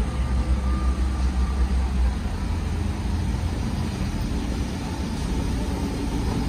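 Class 158 diesel multiple unit approaching at low speed: a steady low engine rumble.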